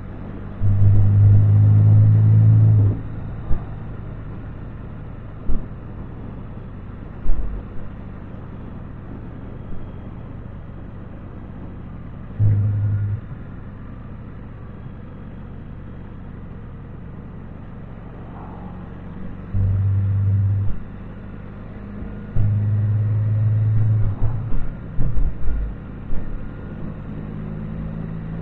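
Can-Am Spyder three-wheeled motorcycle underway, heard from its handlebars: a steady low engine and road drone. Several times it swells suddenly into a louder low hum for a second or two, longest near the start, with a run of them near the end, and there are a few short knocks.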